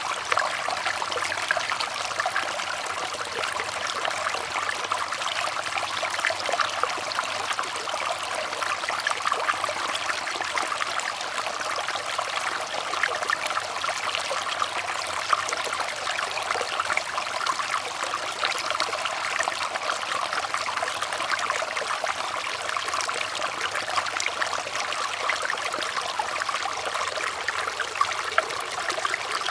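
Water trickling and splashing steadily, a dense unbroken patter of small splashes with no change in flow.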